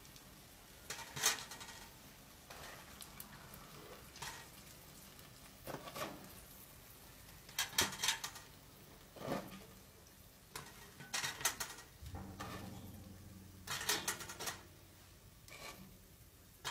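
Metal spoon clinking and scraping against a metal cooking pot as food is stirred, in short irregular strokes every second or so.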